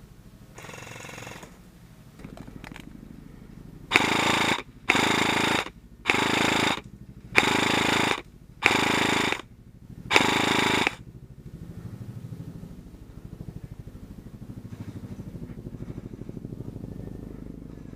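Airsoft electric gun firing full-auto, six short bursts of rapid shots, each under a second long and about a second apart, with a fainter burst near the start.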